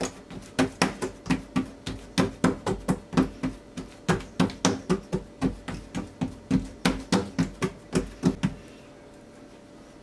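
Oiled fingertips patting and pressing a ball of dough flat on a wooden board, a quick run of slaps about three or four a second that stops about eight and a half seconds in.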